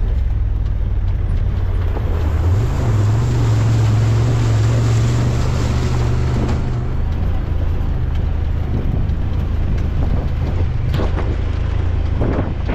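Motorcycle engine running while riding, with wind buffeting the microphone. The engine pitch rises about two and a half seconds in, holds, then eases off around seven seconds.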